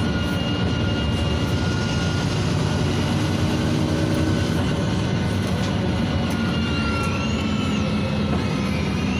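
NefAZ 5299 city bus with a Cummins ISBe diesel and Voith automatic gearbox running, heard from inside the cabin: a steady engine and drivetrain rumble with a thin whine over it. Near the end the whine rises in pitch and falls back twice.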